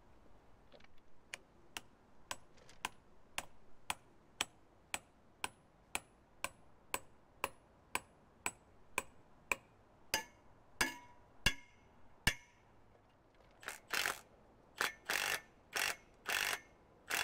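A hammer tapping a concrete anchor into a concrete block wall through a steel post's mounting plate, about two strikes a second, the last few heavier and ringing. From about 14 seconds in, a power drill runs in short repeated bursts into the block through the plate.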